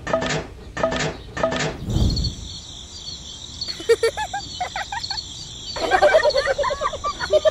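High-pitched, warbling cartoon character voices chattering in two spells. In the first two seconds come short rhythmic voiced sounds about two and a half a second, then a low thump, all over a steady high whine.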